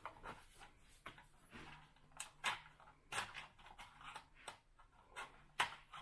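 Hands fitting a plastic clip into the headrail of a horizontal window blind: irregular small clicks and scrapes, with a few sharper snaps among them.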